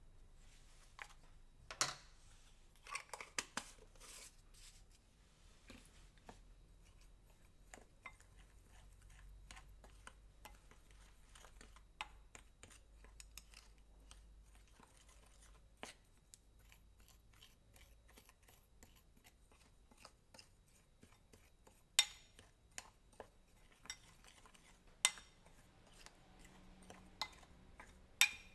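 Kitchen prep handling sounds: scattered light clicks, taps and clinks of utensils and dishes, with a few sharper clinks about two to four seconds in and again near the end.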